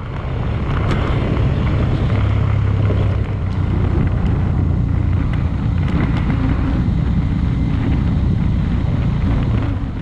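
Suzuki 250 cc motorcycle engine running at a steady road speed, with heavy wind rush over the microphone.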